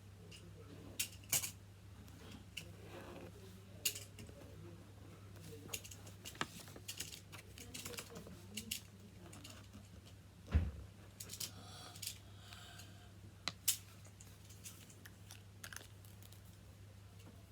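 Scattered clicks and light taps of coloured pens being handled and set down on a table while drawing on paper, with one heavier thump about ten and a half seconds in, over a steady low hum.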